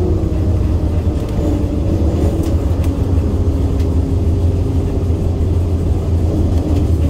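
De Havilland DHC-4 Caribou's main landing gear rolling along the runway after touchdown: a loud, steady low rumble of the tyres and airframe with a faint engine drone, and a few light ticks.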